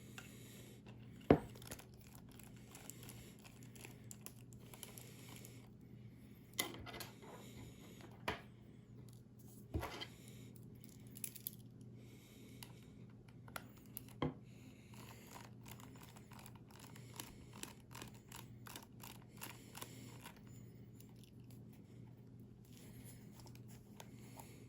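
Small handling noises: light clicks, taps and scrapes of a phone and small tools being handled on a work surface, with several sharper knocks in the first half, over a steady low hum.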